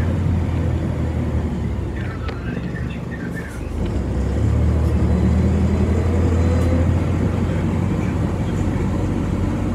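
A city bus's engine running, heard from inside the bus as a steady low drone. It eases off around three seconds in, then grows louder again about a second later.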